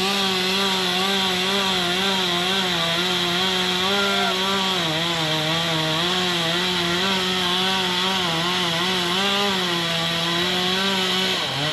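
Two-stroke chainsaw running at high revs, cutting into a tree. Its note wavers slightly as the chain bites, and it cuts off near the end.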